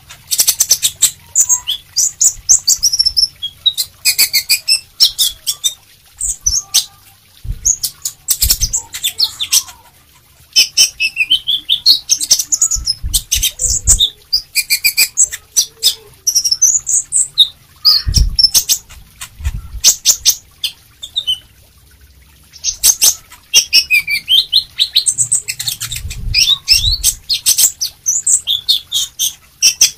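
Male sunbird singing in bursts of fast, high, twittering notes with short pauses between the bursts. A few low thumps come between the song.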